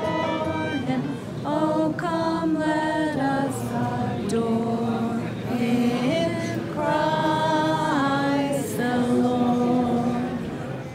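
A group of voices singing a cappella inside a large stone church, in slow, held notes.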